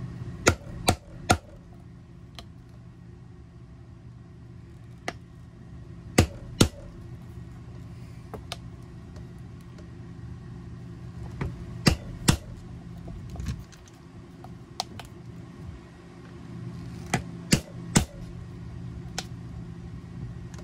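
Mallet striking a hollow drive punch through belt leather to make the buckle holes: sharp strikes, often two or three in quick succession, with pauses between holes. A steady low hum runs underneath.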